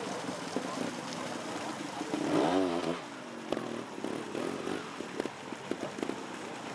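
Trials motorcycle engine revving in short blips. The loudest is a rising and falling rev about two seconds in. A few sharp knocks follow in the later part.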